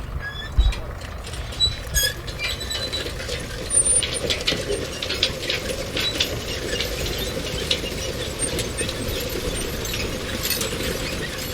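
Metal construction-site background: irregular metallic clanks, knocks and rattles over a steady mechanical drone, with a few brief high squeals in the first two seconds.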